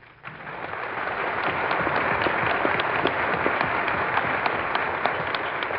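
Dinner audience applauding, a dense patter of many hands that builds up over the first second and then holds steady, heard through an old broadcast recording with the top end cut off.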